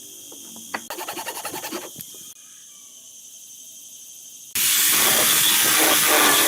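A burst of quick, even scraping strokes on wood, about ten a second, then a pause, and about four and a half seconds in an electric power tool switches on and runs steadily and loudly.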